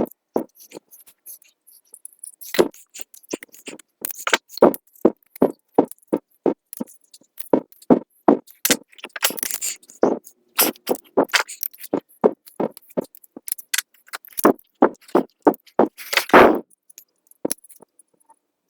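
Small metal SU carburettor parts being handled: a quick, irregular run of clicks and clinks, with a longer scrape about halfway through and another near the end.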